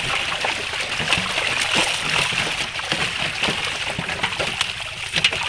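Fish packed tight in a net thrashing in shallow water as hands grab at them: constant splashing and sloshing, with many small sharp slaps.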